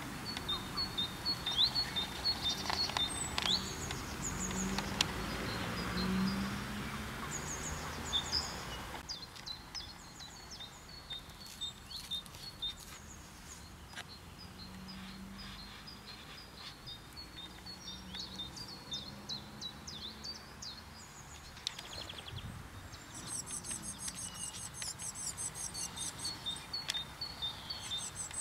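Outdoor ambience of songbirds chirping and singing over a steady background hiss, which drops noticeably about nine seconds in. A fast, high, repeated trill joins in over the last few seconds.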